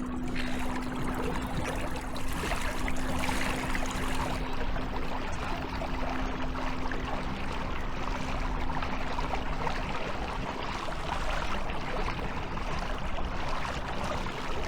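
Newport NV electric trolling motor running at top speed with a steady hum, over a constant rush of water past the kayak.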